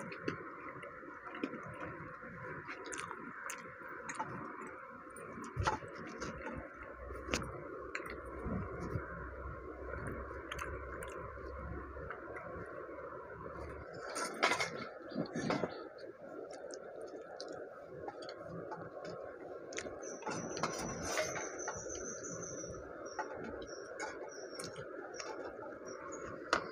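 Fingers clicking and scraping on steel plates as people eat rice by hand, over a steady background hiss.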